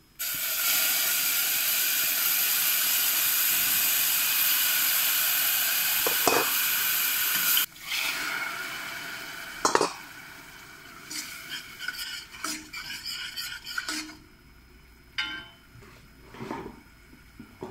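Crushed tomato sizzling loudly in hot oil in a stainless steel pot. The sizzle cuts down sharply after about seven and a half seconds and carries on more quietly, with several metal clanks and clinks against the pot.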